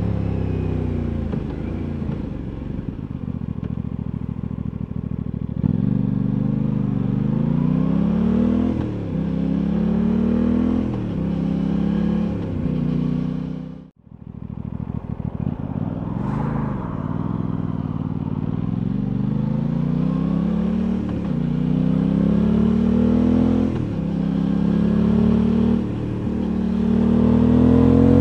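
Aprilia Tuono 660's parallel-twin engine on the move, its revs climbing and falling again and again as the rider accelerates and eases off, with wind rushing past. About halfway through the sound briefly fades out and comes back.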